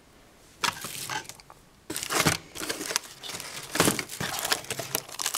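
Packaging crinkling and rustling in irregular bursts as the phone's accessories are handled and pulled out of the box.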